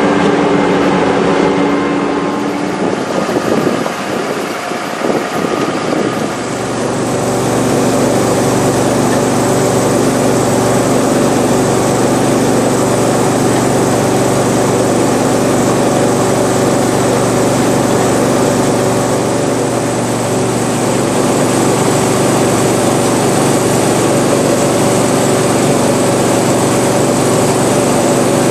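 Combine harvester running at working speed in a wheat field: a steady, loud engine and machinery hum. It dips and wavers about three to six seconds in, then holds steady.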